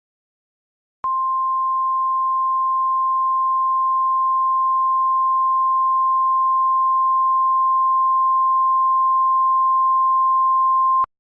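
Emergency Alert System weather alert tone: the National Weather Service's single steady high-pitched tone, which starts about a second in, holds for about ten seconds and cuts off sharply. It signals that a warning message, here a flash flood warning, is about to be read.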